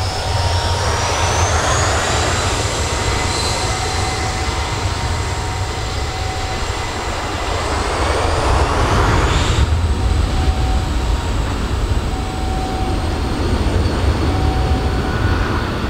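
Avro RJ85 four-engined jet taxiing, its turbofans giving a high whine over a low rumble. The whine rises in pitch over the first couple of seconds. A hissing swell builds around eight seconds and drops off suddenly near ten seconds as the jet swings round to face the camera.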